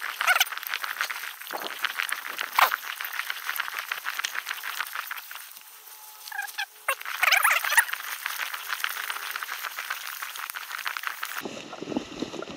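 A chorus of frogs: many overlapping, fast clicking and rattling calls. It cuts off suddenly near the end and gives way to a low rumbling noise.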